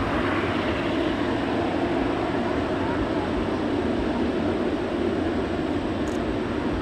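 Boeing 787-10's turbofan engines running at taxi power as the airliner rolls slowly along the taxiway: a steady, even rushing hum.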